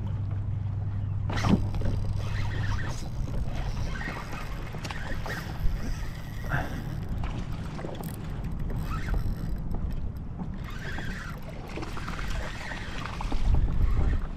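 Wind buffeting the microphone and water on a small skiff's hull, with a low steady hum that stops about three seconds in. Scattered clicks and knocks come from rod and reel handling, and a heavy low rumble of wind comes near the end.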